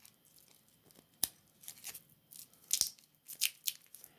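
Stingray strap being fitted into the interchangeable lugs of an Invicta watch case: light rubbing and scraping with two sharp clicks about a second and a half apart.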